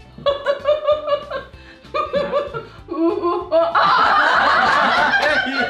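People laughing in short repeated bursts, breaking into much louder, wilder laughter about two-thirds of the way through.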